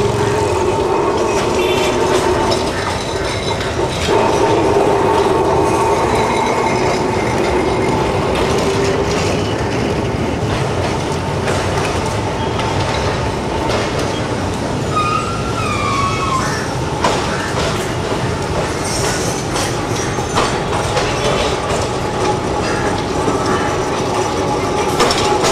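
Calcutta electric tram running along street track, clanking, with knocks from the wheels and a steady whine held throughout.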